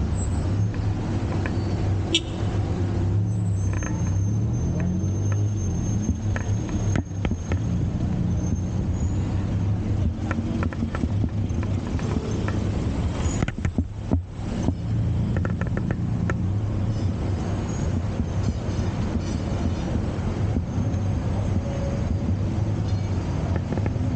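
Tuk-tuk (auto-rickshaw) engine running steadily while riding slowly in street traffic, with a low rumble, a few scattered clicks and a brief drop in loudness about halfway through.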